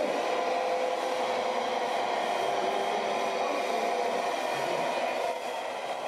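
Radio-controlled model tipper truck driving: a steady mechanical running hum with a motor whine.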